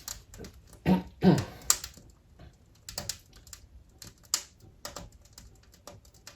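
Wood fire crackling in a wood-burning stove, with irregular small pops and two louder cracks about a second in, as the kindling on top burns and the logs beneath catch.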